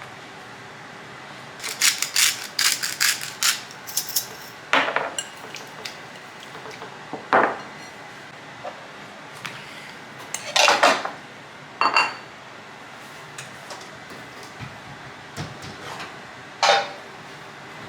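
Dishes and utensils clinking and knocking in scattered separate strikes, several with a brief ring.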